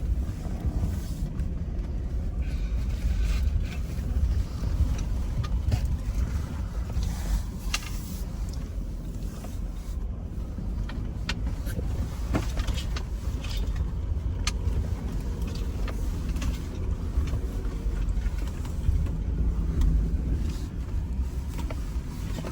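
Jeep driving slowly down a snowy, slippery hill: a steady low engine and tyre rumble with scattered short clicks.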